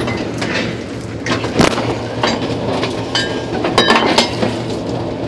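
Steady drone of a ship's engine under the rush of wind and rough water along the hull, with several sharp clinks and knocks, the loudest about a second and a half in.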